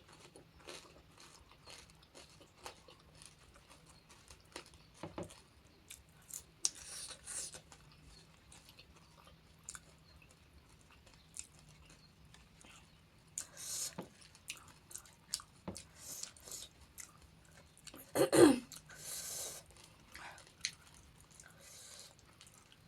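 Close-up chewing and crunching of crisp panipuri shells, with scattered small clicks of bites and mouth sounds and a few short hissy breaths. A single louder, brief sound with falling pitch comes about eighteen seconds in.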